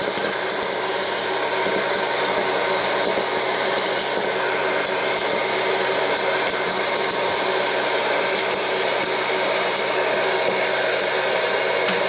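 Vintage Wear-Ever Popcorn Pumper hot air popper running: its fan and motor blow a steady rush of hot air with a low hum, while corn kernels pop sharply and irregularly.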